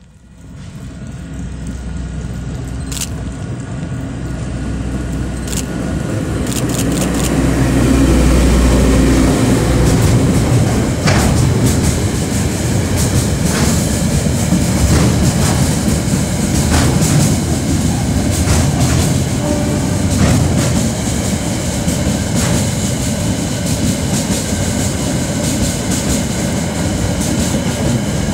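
DSG-class diesel shunting locomotive running on the rails. It grows louder over the first several seconds, then holds a loud, steady engine note, with wheels clicking over rail joints.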